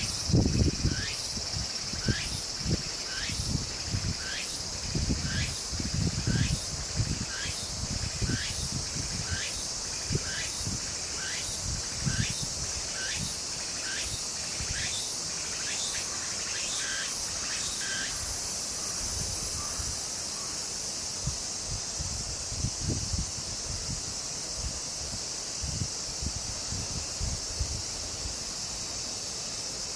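Outdoor insect chorus: steady high-pitched buzzing, with a short chirp repeated about twice a second that stops a little past halfway.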